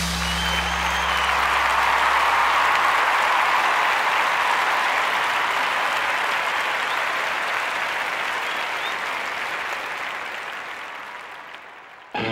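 Theatre audience applauding: a dense, even clapping that builds over the first couple of seconds, then fades away gradually over the last few seconds.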